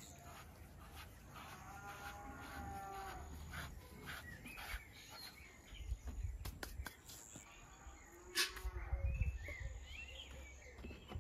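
Cattle mooing twice: a long call about two seconds in and a lower one about eight seconds in, with a few birds chirping near the end.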